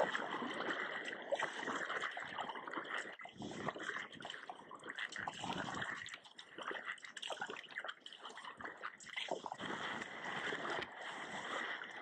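Sea water splashing and trickling around a moving sea kayak, in an irregular, continuous wash.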